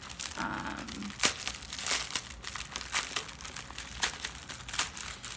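Plastic packaging of a diamond painting kit being handled and rustled, with irregular sharp crackles.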